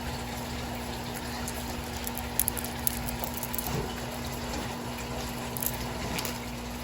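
Steady background hum and hiss with a few faint light clicks about two and a half and five and a half seconds in, from glass beads being handled.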